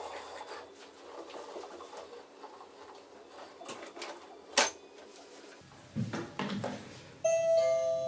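A Mamirobot robot vacuum runs with a faint whir while it noses back into its charging dock, with a sharp click about halfway. Near the end it gives a loud electronic chime of two steady tones, the signal that it has docked and is starting to charge.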